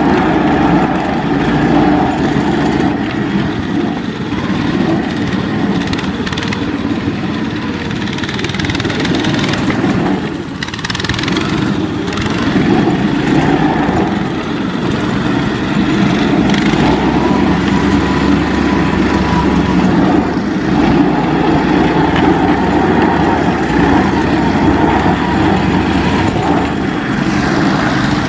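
ZiD "Vyuga" mini snowmobile's small engine running continuously, its note rising and falling, with a brief drop in level about ten seconds in.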